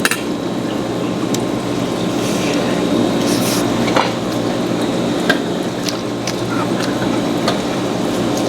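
Close-up eating sounds of mussels in XO sauce being chewed, wet and squishy, with scattered sharp clicks from the food and utensils, over a steady low hum.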